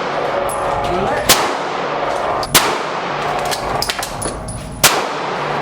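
Three gunshots at a shooting range, sharp cracks each followed by a short echoing ring, spaced unevenly about one to two seconds apart.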